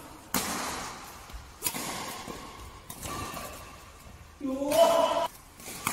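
Badminton racket strikes on a shuttlecock, several sharp hits that echo in a large hall. About four and a half seconds in comes a man's shout.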